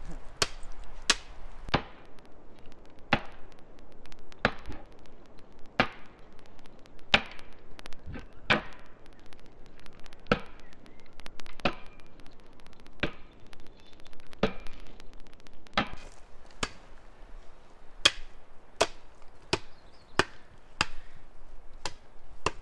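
Axe chopping wood: a steady run of sharp strikes, roughly one a second, used to split apart a log.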